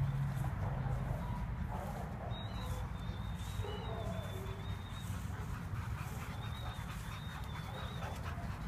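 Dogs whining faintly in thin, wavering tones, twice, over a steady low hum.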